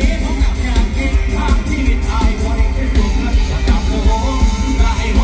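Live mor lam (lam sing) music over a loud PA: a singer singing into a microphone over a band with heavy bass.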